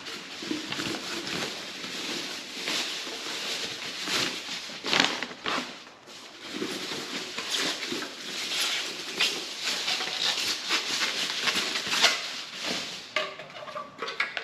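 A cardboard box being opened by hand: packing tape pulled off and packing material rustling and crinkling, with scattered small taps and clicks.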